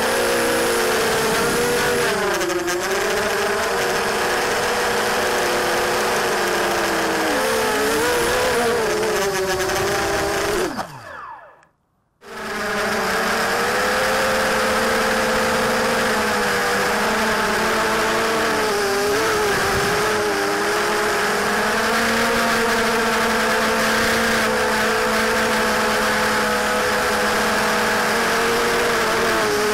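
Brushless motors and 5-inch Gemfan 5040 props of a 250-class racing quadcopter, heard from its onboard camera: a loud, distorted whine whose pitch rises and falls with throttle. About 11 seconds in the pitch falls away and the sound cuts out for about a second, then the motors spin back up.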